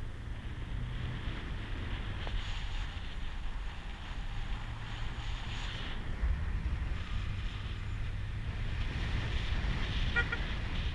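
A vehicle driving on a dirt forest road: a steady low engine and drive rumble with the rough noise of the tyres on the dirt, and a brief quick squeaking about ten seconds in.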